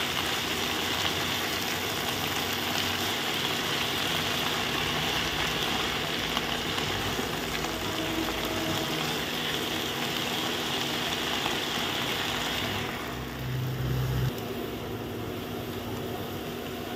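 Fenugreek leaves sizzling in hot mustard oil in a nonstick pan as they are stirred with a spatula, their water cooking off. The sizzle turns quieter and duller about thirteen seconds in, with a brief low hum just after.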